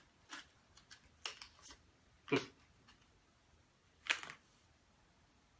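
Packaging and a small item being handled: a few short rustles and clicks, the loudest about two seconds in and another about four seconds in.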